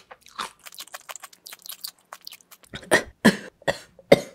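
Close-up chewing of silbi kimchi, spicy fermented napa cabbage: a quick run of small crunches, with a few louder ones about three seconds in.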